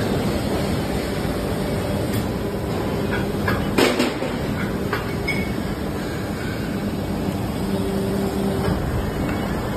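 Injection moulding machine running a pipe-fitting mould: a steady machine hum, with one sharp clack about four seconds in.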